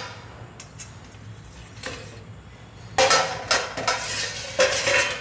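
Metal cookware clinking and clattering as a lid and utensils are handled on the steamer pot. A few light taps come first, then a louder run of clatter from about three seconds in.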